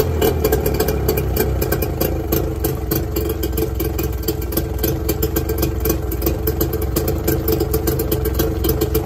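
Mercury 25 hp outboard motor idling steadily at a fast, even pulse. It is running at its normal idle on a hot engine, with the prime/enrichment knob turned back anti-clockwise.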